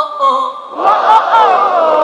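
Large concert crowd chanting and singing out loudly, many voices together on high held and sliding notes, easing off briefly about half a second in.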